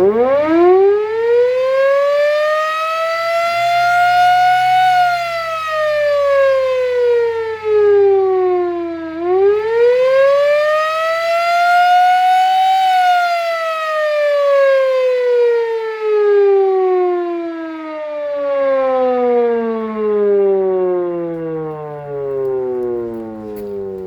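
A Type B first-generation mining siren sounding an attack tone. It winds up to a high wail, drops, winds up again, then winds down in one long falling glide over the last ten seconds or so.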